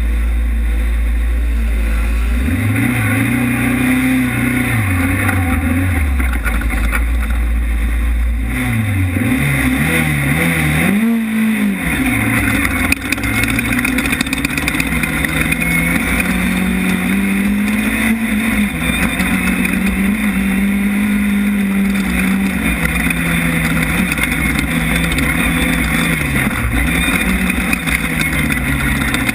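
Class 10 off-road race car engine heard from an onboard camera, its pitch rising and falling again and again as the car accelerates and backs off, over steady loud noise.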